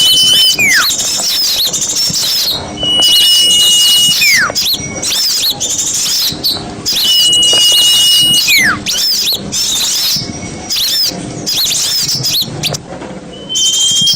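Bird-lure recording of a chorus of many small songbirds chattering in rapid high chirps. Every three to four seconds a long, steady high whistle ends in a slur that falls sharply in pitch.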